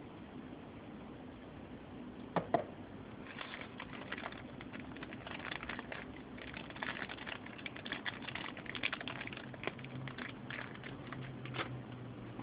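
Crinkling of a thin plastic accessory bag being handled, an irregular crackle that runs for most of the time, after two sharp clicks about two and a half seconds in.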